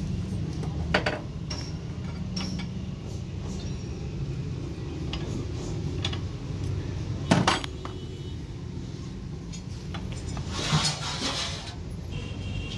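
Metal engine parts (piston, connecting rod and bearing shells) clinking against each other and the bench as they are handled, a scatter of sharp clinks with the loudest about seven seconds in and a rattly stretch near the end. A steady low rumble runs underneath.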